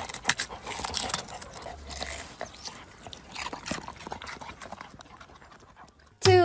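Irregular clattering knocks, dying away over the seconds, then a sudden loud pitched sound falling in pitch right at the end.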